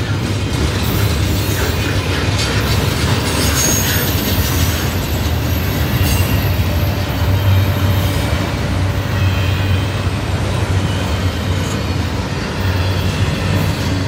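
Double-stack intermodal freight train rolling by: steady rumble and clatter of the well cars' wheels on the rails, with a few faint wheel squeals.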